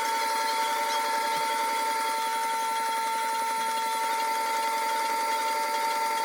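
Güde wet sharpening grinder running, sped up to four times speed: a steady high whine over a fast, rough rhythm.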